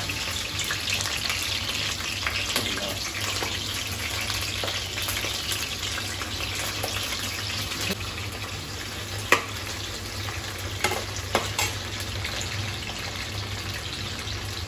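Cauliflower florets frying in hot oil in a kadhai: a steady sizzle and crackle over a low hum, with a few sharp metal clinks in the second half.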